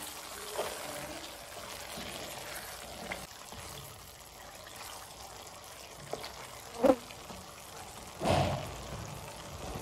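Wooden spoon stirring thick chicken curry gravy in an aluminium pot, over a faint steady hiss. A few light knocks of the spoon on the pot, a sharper one about seven seconds in, then a louder, longer stirring noise just after.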